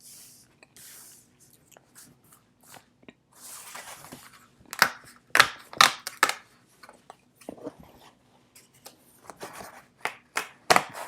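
Thick cardboard cards being popped out of a perforated sheet: soft scraping and rustling of the board, broken by sharp snaps as the tabs give way, several in quick succession about halfway through and two more near the end.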